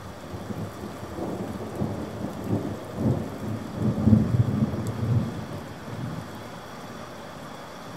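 Steady rain with a long roll of thunder that builds from about half a second in, peaks near the middle, and fades away by about six seconds.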